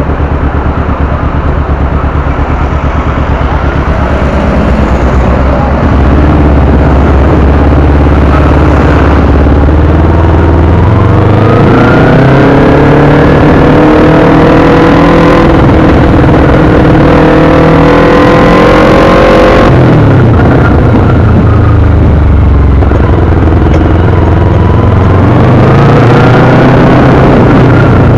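Motorcycle engine heard from a camera on the bike, running low and steady in slow traffic, then revving up about ten seconds in and holding. The revs drop sharply about twenty seconds in and climb again a few seconds later.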